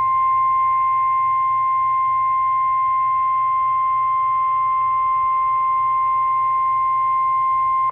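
NOAA Weather Radio warning alarm tone, a steady single high tone held for about eight seconds and cutting off abruptly, heard through a weather radio receiver. The tone signals that a warning, here a severe thunderstorm warning, is about to be read.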